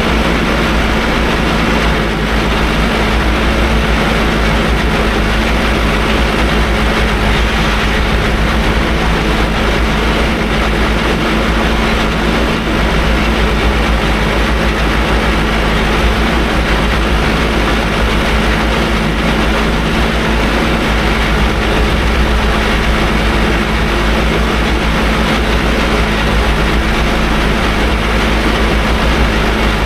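Farm tractor engine running at a steady speed under field work, a constant drone with a deep low rumble.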